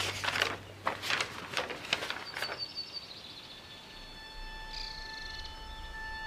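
Sheets of paper rustling and crackling as they are handled and leafed through, a series of quick rustles over the first two and a half seconds. Quiet sustained tones of the background music follow.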